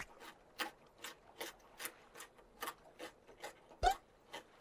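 Steady clock-like ticking sound effect, about two and a half ticks a second, with one louder thump near the end.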